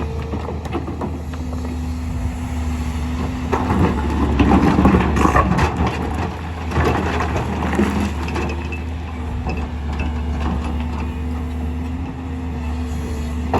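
Excavator's diesel engine running steadily with a hydraulic whine, while stone clatters and crunches as it is scooped and dumped, loudest about four to five seconds in.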